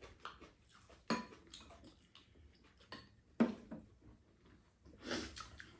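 Spoons clinking and scraping against small ceramic bowls while eating, with two sharper clinks about a second in and a little past the middle, and a longer scrape near the end.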